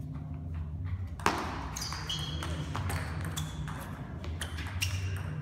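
Table tennis ball clicking sharply against bats and table, a quick irregular series of light knocks, the loudest about a second in. A steady low hum of the hall sits underneath.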